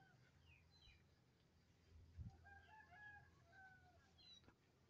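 A distant rooster crowing faintly, with small birds chirping now and then. A soft low thump comes about two seconds in.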